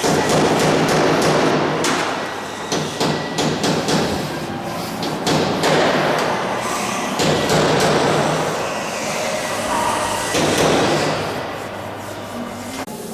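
Sheet-metal work: repeated hammer knocks and taps in irregular clusters over a loud rasping, rubbing noise.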